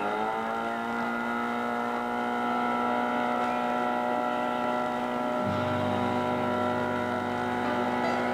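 Background music: a held chord that slides down in pitch at the start and settles, with a low bass note coming in about five and a half seconds in.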